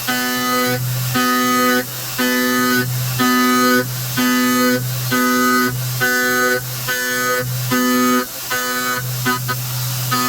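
Background music: a steady, repeating pattern of held chords over a bass line.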